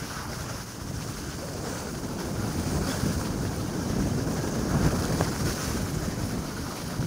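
Wind buffeting an action camera's microphone, a steady rushing as the wearer slides down a snowy slope.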